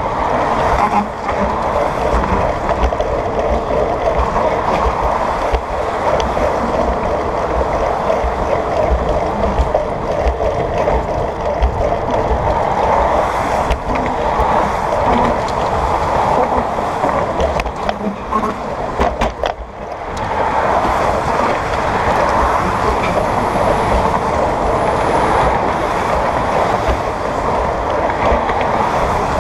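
Steady rush of wind on a bicycle-mounted camera's microphone while riding, mixed with the noise of car traffic passing in the lanes beside it. It dips briefly about two-thirds of the way through.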